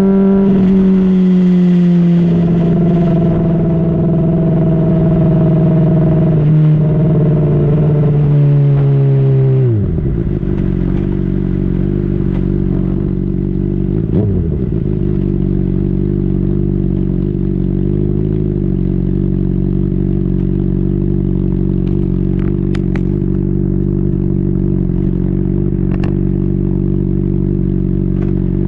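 2010 Honda CBR600RR inline-four with a Yoshimura slip-on exhaust. For the first ten seconds it runs at high revs with the pitch sagging slowly as the bike slows, then the revs drop sharply and the engine settles into a steady, low, even note like an idle.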